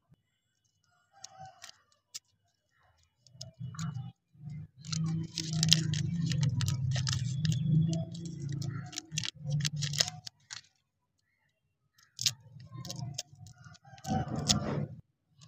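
Plastic lollipop wrapper crinkling and crackling as it is torn open and peeled off the lollipop by hand, densest from about five to ten seconds in. A shorter spell of rustling follows near the end as the small paper sheet from inside is handled.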